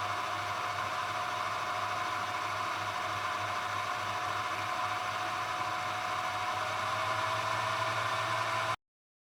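Cooling fans of a hobby LiPo balance charger and its power supply running steadily under a heavy 20-amp charge, a whir with a faint whine and low hum. It cuts off suddenly near the end.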